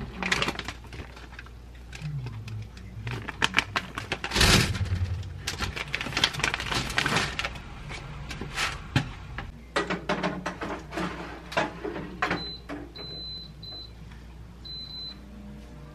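Rustling, crinkling and light clatter as breaded pork cutlets are unpacked and laid on parchment paper in a wire air-fryer basket, with one louder knock. Near the end, an air fryer oven's control panel gives four short high beeps as its buttons are pressed.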